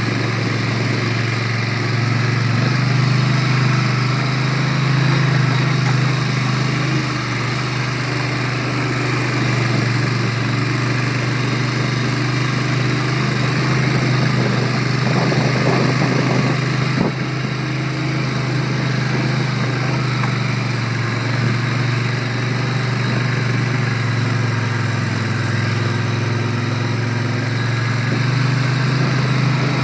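ATV engine running steadily under way on a trail, its pitch rising and falling slightly with the throttle.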